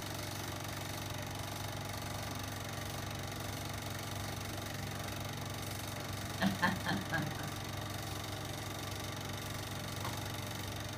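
Cine film projector running with a steady mechanical hum. A short burst of a person's voice comes about six and a half seconds in.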